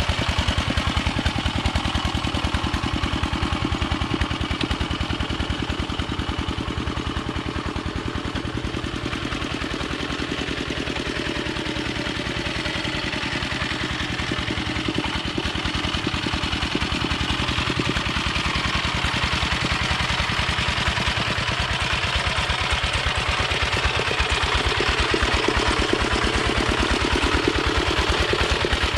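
Yanmar two-wheel hand tractor's single-cylinder diesel engine running steadily under load as it drags a harrow through a flooded rice paddy, with a rapid, even chug. The sound fades somewhat in the middle as the tractor moves away and grows louder near the end as it comes close.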